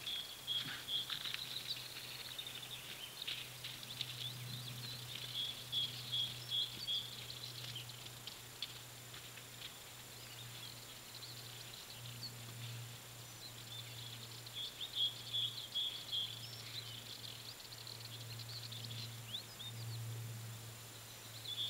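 Small birds singing: a short pulsed trill repeats several times, with scattered chirps between. Underneath runs a steady low hum and a faint constant high tone.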